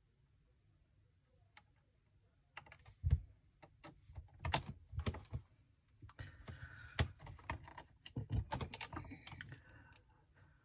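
Scattered clicks and taps from jumper wires being bent and pushed into the spring terminals of an electronics experiment kit, with a stretch of rustling as a wire is handled from about six to nine seconds in.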